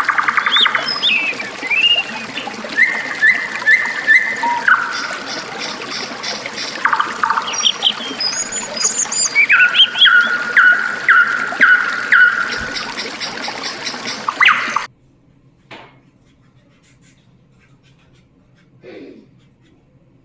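Canaries singing, with quick trills and runs of repeated chirps, over steadily trickling water. About fifteen seconds in, the birdsong and the water cut off abruptly, leaving a much quieter background with a couple of faint brief sounds.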